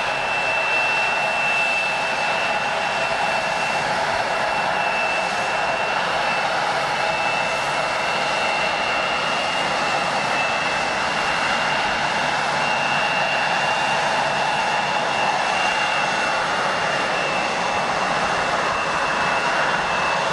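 Jet airliner engines running at a steady level: a broad rush with a thin, high whine on top.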